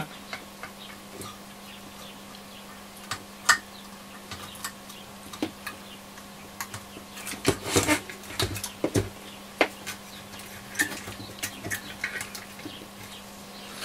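Scattered light clicks and metallic taps of small hand tools against a transistor radio's metal chassis and circuit board, a few bunched together about halfway through, over a faint steady hum.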